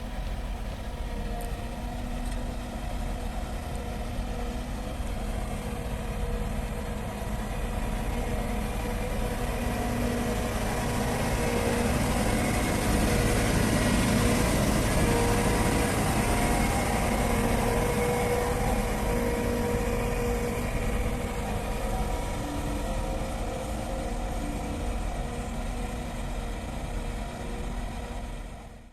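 Engine of a six-wheel-drive off-road vehicle running steadily, getting louder toward the middle and fading out at the very end.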